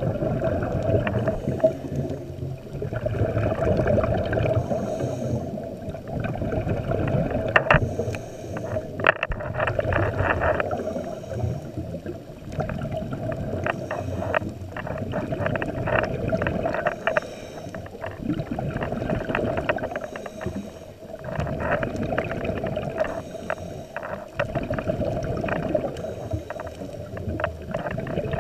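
Scuba diver breathing through a regulator underwater: hissing breaths and bubbly, crackling exhalations repeat every few seconds, muffled through the camera's underwater housing.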